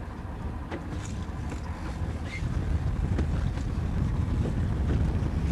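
Wind buffeting the microphone on a small fishing boat at sea, a low rumble that grows louder about two and a half seconds in, with a few faint clicks.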